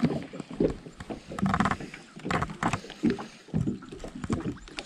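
Water splashing, with scattered knocks and handling noise, as a caught redbreast tilapia is released back into the water.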